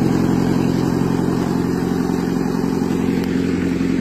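Jeep engine running steadily at an unchanging low speed.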